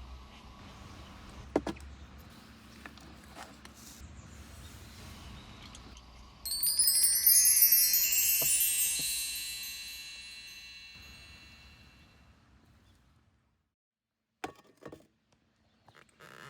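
A sweep of high chimes about six seconds in: a sudden cascade of many bright ringing tones that fades away over about five seconds. A few faint clicks before and after.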